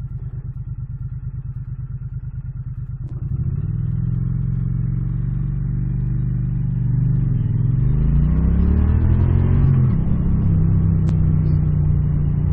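2017 Triumph Street Cup's 900 cc parallel-twin engine on stock exhausts, idling with an even pulse. About three seconds in it pulls away and gets louder. The revs drop at a gear change, climb again, then settle to a steady cruise.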